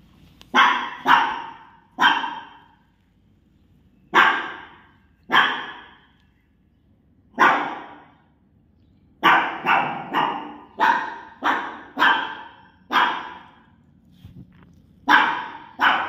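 Small dog barking repeatedly, about fifteen sharp high barks in irregular bursts with a quick run of them in the middle, each bark trailing off with a short echo.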